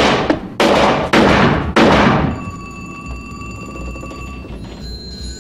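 A pistol fired in quick succession, about one shot every half second or so, four shots in the first two seconds, each with a short ring-out. Then a steady high ringing tone made of several pitches, which fades out near the end.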